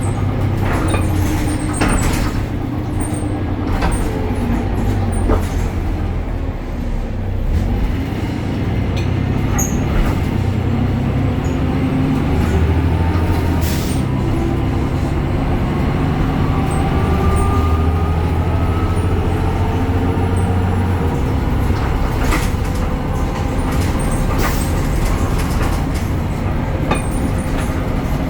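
Diesel engine and ZF automatic transmission of a BredaMenarini Avancity Plus city bus running on the move. The engine drone shifts in steps, a whine rises slowly as the bus gathers speed, and sharp clicks and rattles come and go.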